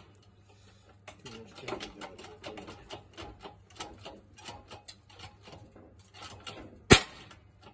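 Seized piston in a Rootes 1600 engine block being forced down its bore by a ten-ton hydraulic press: many small irregular clicks and creaks, then near the end one loud sharp crack as the stuck piston breaks free and jumps a little further.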